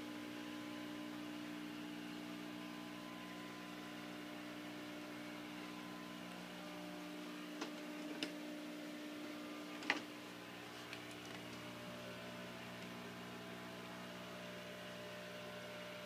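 Steady electrical hum of running aquarium equipment, with a few small clicks, the loudest about ten seconds in.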